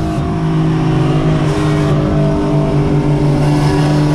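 Infiniti G37's VQ-series V6 engine heard from inside the cabin, holding steady revs while cruising on the highway, over tyre and road noise.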